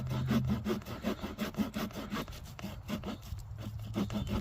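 Small folding saw blade of a Bibury multitool cutting back and forth through a wet, soaked stick, with quick even strokes at about four to five a second.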